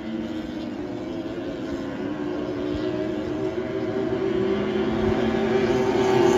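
Outboard engines of small racing powerboats running at full throttle: a steady, high-pitched drone that grows louder toward the end as a boat comes closer.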